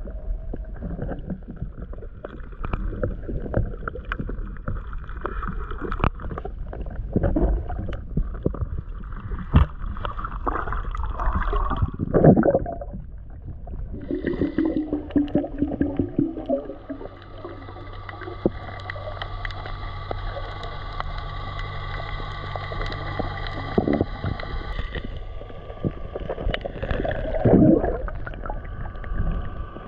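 Underwater sound on a camera: water rushing and gurgling over the housing with scattered knocks and clicks. From about halfway, a boat motor heard through the water joins in as a steady drone with a whine, easing off near the end.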